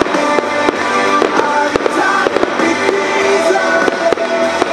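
Fireworks display with music: ground fountains and set pieces going off, with frequent sharp cracks and pops over a song with held notes.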